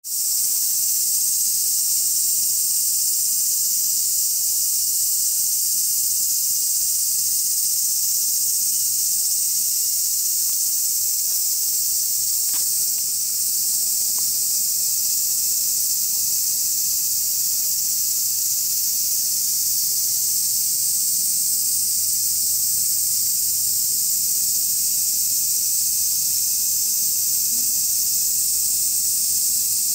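Steady high-pitched chorus of insects chirring outdoors.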